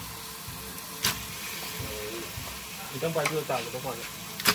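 Food sizzling as it fries, a steady hiss with a sharp knock about a second in and another near the end.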